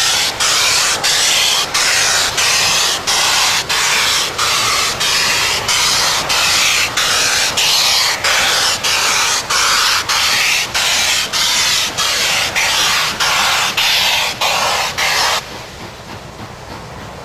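Canadian Pacific 2816, a 4-6-4 Hudson steam locomotive, hauling its train past with a loud steam hiss pulsing about twice a second. The hiss cuts off abruptly near the end, leaving the quieter rumble of the passing cars.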